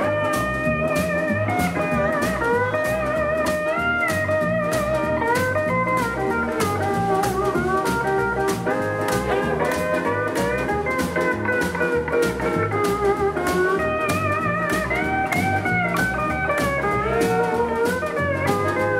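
Live rockabilly band in an instrumental break: a pedal steel guitar plays the lead with gliding, wavering notes over keyboard and a steady drum beat.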